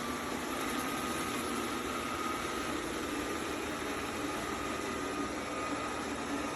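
Robot vacuum running steadily: an even motor hum with a faint steady whine.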